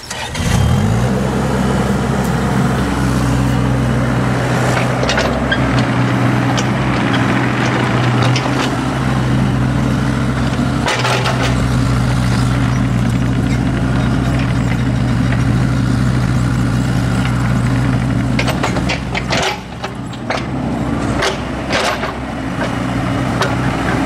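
Bobcat E32 mini excavator's diesel engine coming up to speed about half a second in, then running steadily at working throttle while the machine backfills. Scattered sharp knocks from the bucket and arm come through, with a cluster of them near the end.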